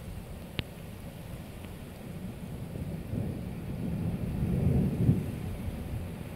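Strong gusty wind with rain, buffeting the microphone in low rumbles that swell a few seconds in; a single sharp tick about half a second in.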